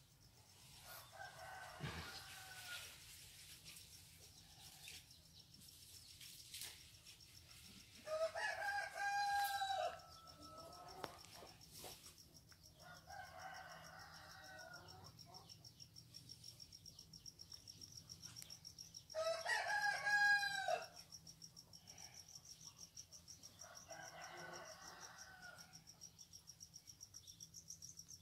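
A rooster crowing loudly twice, each crow about two seconds long, with fainter crows in between. From about halfway a steady, high, pulsing insect trill joins.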